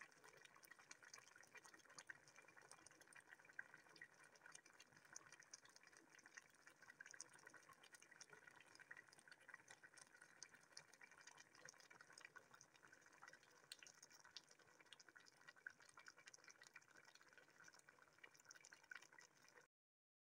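Faint, steady bubbling and crackling of a big pot of afang soup simmering, cutting off suddenly just before the end.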